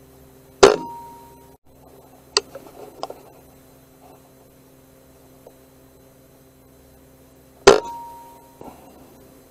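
Two shots from a Brocock BRK Ghost precharged pneumatic air rifle, about seven seconds apart, each a sharp crack with a brief ringing tail. Between them come a few lighter mechanical clicks, the action being cycled for the follow-up shot.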